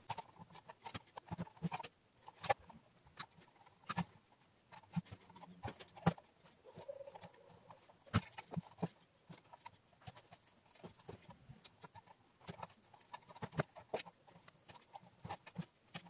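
Irregular light clicks and taps, a few a second, from hands working jumper wire and a soldering iron over a keypad panel of tactile micro switches.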